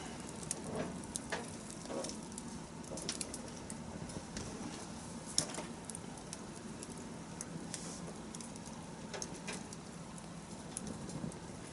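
Wood campfire burning, crackling with irregular sharp pops over a low steady hiss; one pop stands out about five seconds in.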